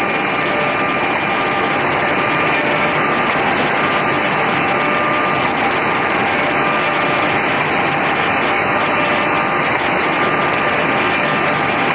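Homag KL 26 Optimat double-sided edgebanding machine running: a loud, steady mechanical hiss and hum with a few faint steady whining tones.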